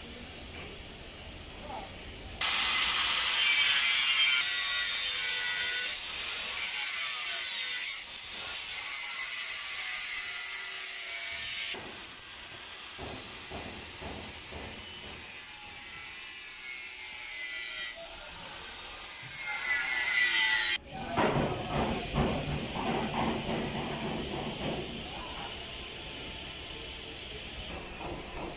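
Bus body workshop tool noise: rasping, scraping and sanding sounds in several short stretches that change abruptly from one to the next. The loudest stretches are the high hissing ones.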